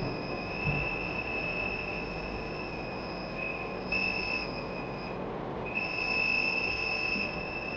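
Small 5 V buzzer sounding a steady high-pitched tone, its volume set by a potentiometer. The tone swells and fades, nearly cutting out about five seconds in, then comes back louder as the knob is turned.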